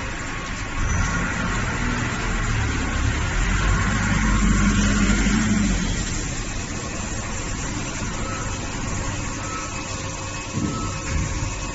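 VMC1100 vertical machining center running a machining job: steady mechanical noise of the spindle and cutting over a low hum, growing louder for a couple of seconds midway.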